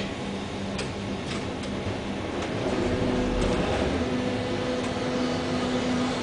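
Berlin U-Bahn train in motion, heard from inside the car: a steady rumble with a few clicks in the first two seconds, then a steady electric motor hum comes in about two and a half seconds in.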